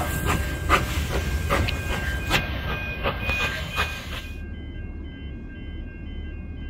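Steam-hauled train running, with a regular sharp beat about two times a second over a hiss. At about four seconds in, the sound changes abruptly: the beat and hiss drop out and steady tones with repeating notes carry on.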